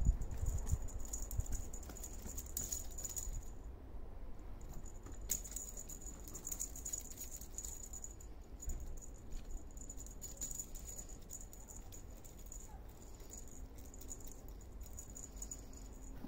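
Small jingle bell on a feather wand cat toy jingling on and off as the toy is waved and batted, with a pause of about a second and a half near four seconds in. Light clicks and taps run under it.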